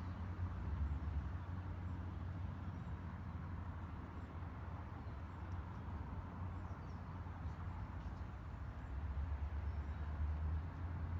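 Steady low rumble, with a few faint bird chirps.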